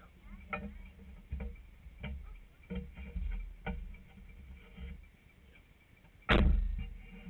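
Scattered knocks and bumps on the body of a Kawasaki Teryx4 side-by-side as people climb out of it, then one loud thump about six seconds in that dies away.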